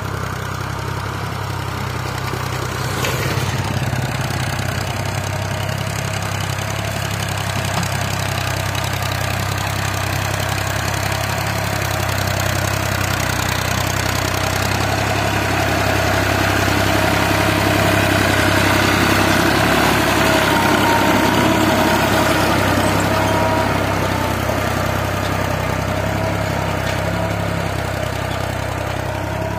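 Diesel farm tractor engine running steadily as it pulls a tine cultivator through ploughed soil, growing louder for a few seconds in the middle.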